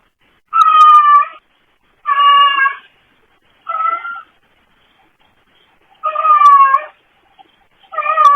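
A brown tabby domestic cat meowing five times, each meow short and slightly falling in pitch, with a longer pause in the middle and the last meow running on past the end. The sound is thin and tinny, as picked up by a pet camera's microphone.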